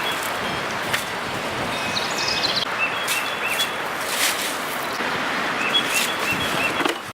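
A songbird chirping in short runs of three or four quick repeated notes, with a brief higher trill about two seconds in, over a steady rush of wind noise. A few short rustles or clicks cut in.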